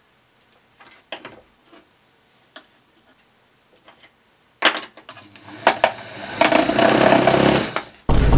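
A small belt-driven wood lathe runs, spinning a log blank as a turning chisel works it, in a steady mechanical rush with a low motor hum that builds for about two seconds and then cuts off. Before it, a few light clicks and knocks, then a sudden loud clack about halfway through as the lathe starts up.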